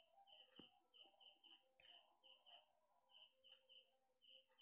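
Near silence with faint, high chirping in the background, in short runs of two or three chirps repeating steadily. There is one faint click about half a second in.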